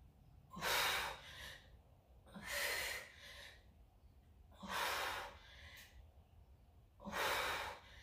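A woman breathing hard while doing push-ups, with four forceful breaths about two seconds apart.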